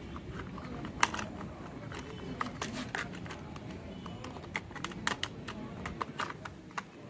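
Hard plastic toy car parts clicking and tapping together as the upper body of a toy Formula One car is fitted onto its base by hand: irregular sharp clicks.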